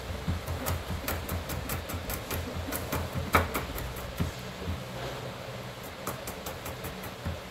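Chef's knife chopping garlic on a plastic cutting board: a quick run of taps, a few a second, pausing briefly a little past halfway, with the sharpest stroke about three and a half seconds in.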